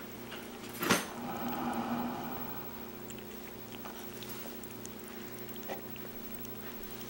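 A small kitten eating dry kibble from a small bowl: scattered small clicks of chewing and of paws and bowl on the table, over a steady low hum. One sharp knock comes about a second in, followed by a short pitched sound.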